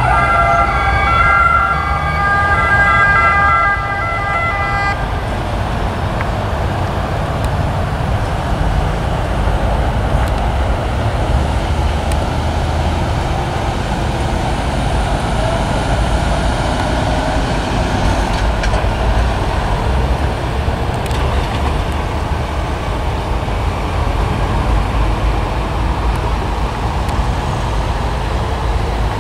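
An emergency vehicle's siren sounds for the first few seconds and stops about five seconds in. After that comes a steady low rumble of vehicle engines and motorway traffic.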